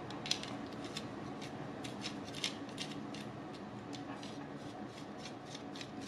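Metal legs of a camping tripod being turned by hand into the threaded connector head: light scraping of metal threads with a few small clicks each second.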